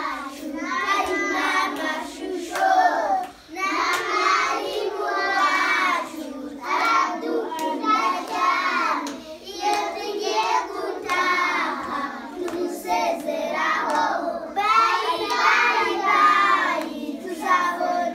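A group of young schoolchildren singing together in phrase after phrase, with sharp hand claps sounding now and then through the song.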